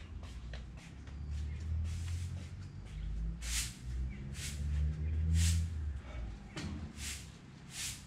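Low, swelling buzz of a wild bee colony, with short hissy bursts about once a second in the second half.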